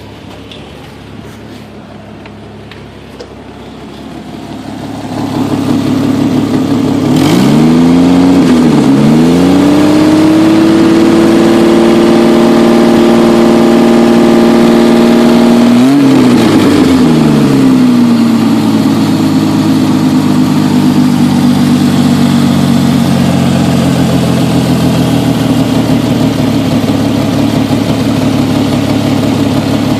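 Jeep XJ 4.0 inline-six engine running. About seven seconds in it revs up, dips briefly and climbs again, holds high revs for several seconds, then drops back to a steadier lower run. The engine is one that is slow and misfiring.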